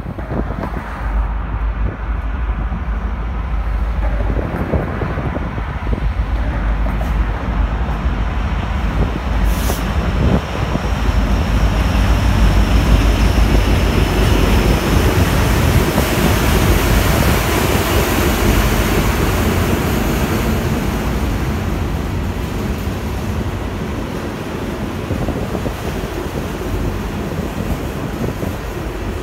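A Canadian Pacific diesel locomotive approaches and passes, followed by a long train of flatcars loaded with steel rail rolling by with steady wheel-on-rail noise. Wind buffets the microphone with a low rumble. The sound builds over the first dozen seconds, is loudest around the middle and eases slightly toward the end.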